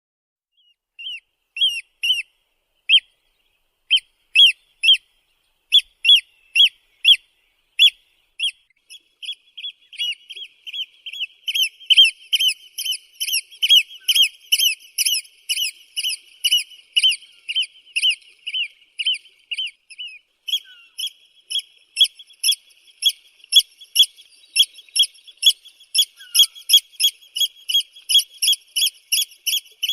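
Eurasian oystercatcher calling with high, piping notes. At first they come singly or in pairs about a second apart; about a third of the way in they run together into a fast, continuous series of several notes a second.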